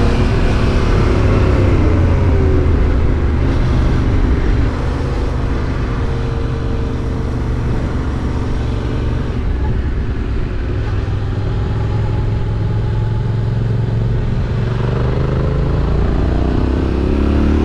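Yamaha Ténéré 700's parallel-twin engine, fitted with an Akrapovič exhaust, running steadily while the bike is ridden. Its note rises and falls near the start and again near the end, and is steadier in between.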